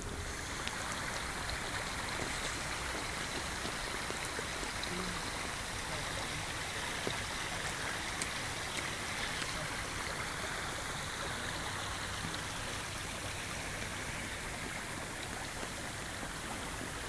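A small burn running steadily over stones and shingle where it flows into the loch.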